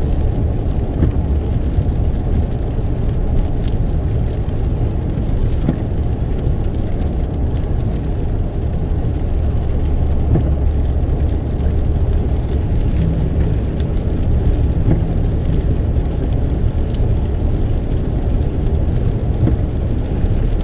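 Steady road and engine noise inside a car's cabin while driving: a constant low rumble of tyres and engine with no sudden events.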